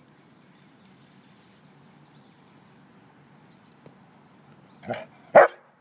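Golden retriever barking twice in quick succession near the end, the second bark louder.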